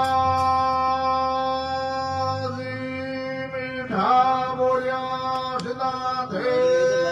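Men chanting devotional singing at a Jasnathi jagran, holding long, high, steady notes of a couple of seconds each, with short breaks about four and six seconds in, over a steady low tone.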